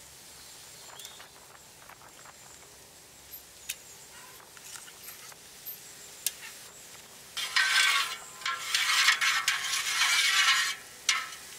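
A few faint clicks of a spoon on a steel tin of ghee, then about seven seconds in, loud sizzling for several seconds as ghee and whole spices hit hot oil in a large aluminium pot.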